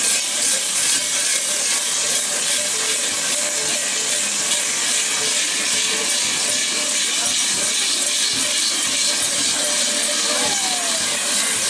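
Dense, steady clanging and jingling of the large bells worn by fur-clad Schiachperchten, with crowd voices underneath.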